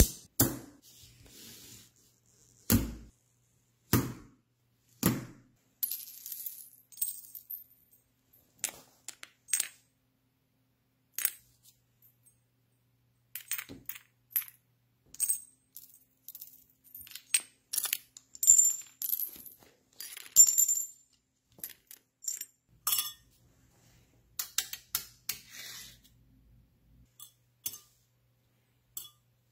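Neodymium cube magnets snapping and clicking together on a steel plate: many sharp, irregular metallic clicks, some with a brief high ring.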